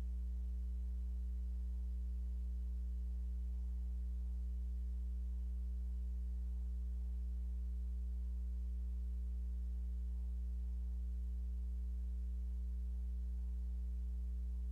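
Steady low electrical mains hum in the sound feed, with no other sound over it.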